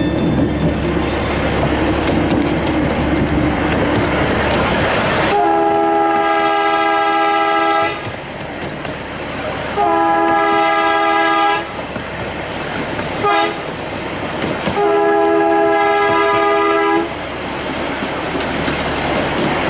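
Miniature steam locomotive's chime whistle blowing long, long, short, long, the grade-crossing signal. Under it, the steady rumble and clatter of the passenger cars rolling along the track.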